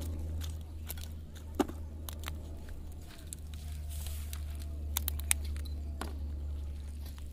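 Crackling and sharp clicks of footsteps on dry straw and reed stalks, with a few louder knocks about one and a half and five seconds in, over a steady low hum.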